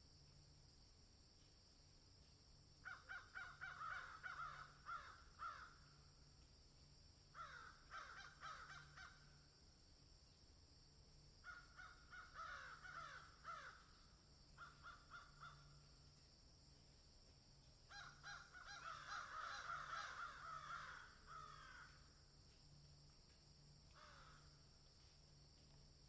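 Bird calls in about six bouts, each a quick series of harsh repeated notes, with pauses of a second or more between bouts, over a faint steady hiss.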